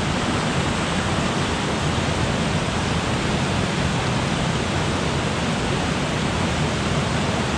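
Steady loud rush of a small creek in flood, its fast water pouring and roaring over rocks, swollen by the previous night's storms.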